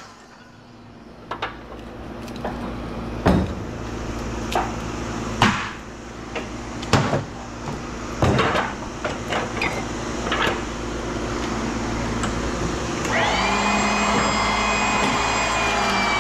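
Scrap metal knocking and clanking, a dozen or so sharp hits, over a steady machine hum. A high, steady motor whine starts about three seconds before the end.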